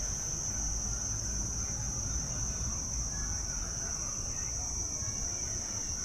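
Continuous high-pitched insect chorus, one steady unbroken note, over a low rumble.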